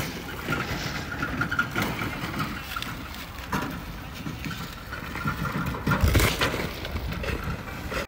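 Ears of dried corn clattering and knocking against each other as they are raked and spread across a tarp, over a steady low rumble.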